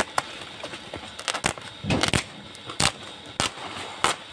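Woven plastic sack crinkling and rustling in irregular crackles as it is pulled back off a bundle of dragon fruit cuttings.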